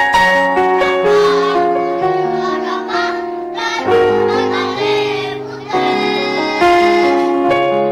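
Children's choir singing with musical accompaniment, holding sustained notes.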